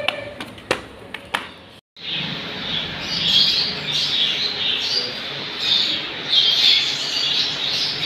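A few footsteps on stairs, then after a sudden cut about two seconds in, steady chirping and chattering of many caged small birds, budgerigars among them.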